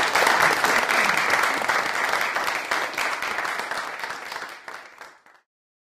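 Audience applauding, a dense clapping that thins out and then cuts off abruptly about five seconds in.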